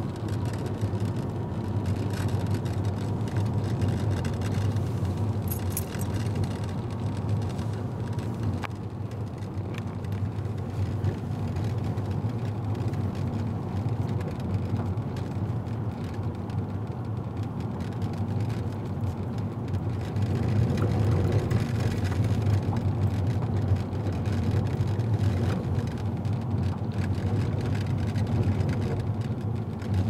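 Car driving at steady speed, heard from inside the cabin: a constant low hum of engine and tyre noise, getting a little louder about two-thirds of the way through.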